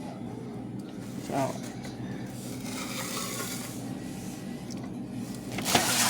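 Food packaging being handled on a table, with light rubbing and scraping and a louder crinkling rustle near the end.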